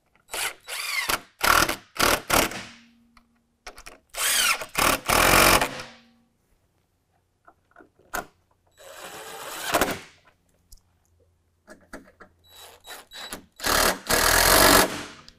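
DeWalt cordless drill with a socket running in several short bursts, a few seconds apart, driving in the headlamp's mounting bolts.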